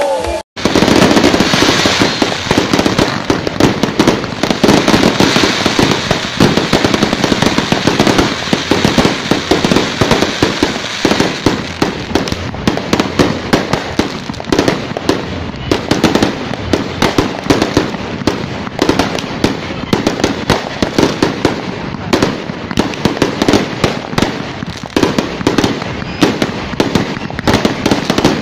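Aerial fireworks going off in continuous rapid volleys: many sharp bangs and crackles a second, loud and unbroken, after a brief cut-out about half a second in.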